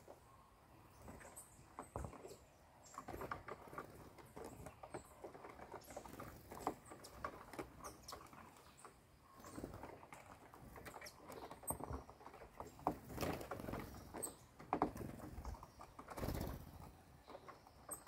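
Tanagers and thrushes hopping, landing and pecking on a corrugated fibre-cement roof sheet strewn with cut fruit and cornmeal: irregular light taps and scrabbling of feet and bills on the sheet.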